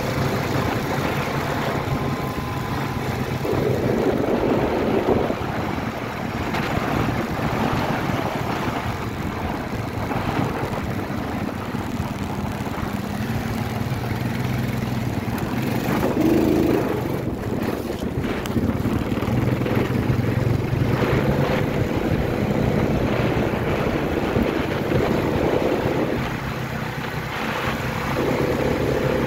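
ATV engine running steadily as the quad is ridden along, with wind noise on the microphone.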